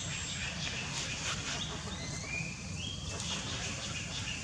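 A thin, high-pitched animal call that rises in small steps, from about a second and a half in to past the three-second mark, over a steady low background rumble.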